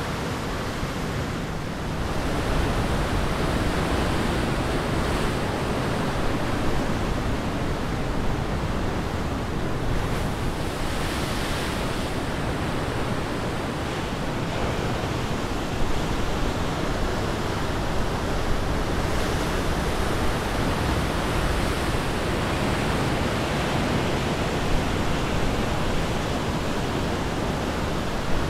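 Tasman Sea surf breaking and churning: a steady, dense wash of waves, a little louder from about two seconds in.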